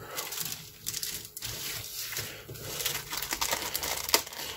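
Thin clear plastic bag around a chrome-plated model-kit sprue crinkling as it is handled, in quick irregular crackles, the sharpest one about four seconds in.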